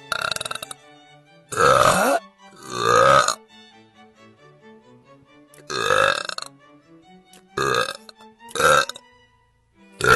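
A woman belching loudly, about half a dozen separate long burps a second or two apart, over quiet background music.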